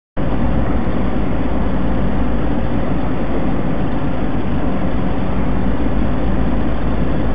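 Steady, loud engine drone and road noise inside a moving vehicle, picked up by its dashcam; it cuts in sharply just after the start and holds even, with a deep rumble underneath.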